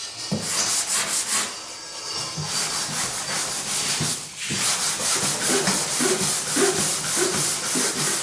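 Hand sanding on a car door panel: repeated back-and-forth scraping strokes of abrasive over bare steel and body filler, with a short pause about four seconds in. The work knocks down the high spots on the panel before priming.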